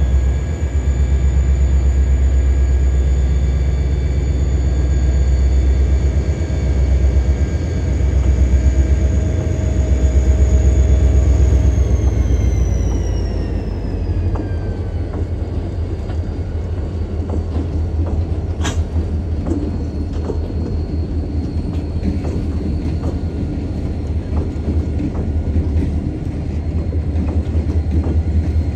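Lake State Railway freight train led by EMD GP40-series diesel locomotives passing close by: a deep engine rumble with a high whine that drops in pitch as the locomotives go past, about halfway through. After that the freight cars roll by with a steadier, lower rumbling of wheels on rail and a single sharp click.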